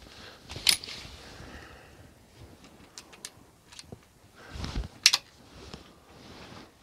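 Single-shot Ruger No. 1 falling-block rifle being reloaded: a sharp metallic click as the lever drops the breech open about half a second in, a few light ticks, then a sharp clack as the lever snaps the breech shut about five seconds in.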